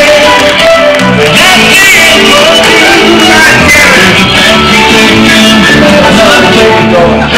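Live band playing loud music, with electric guitar and a singer's voice over it.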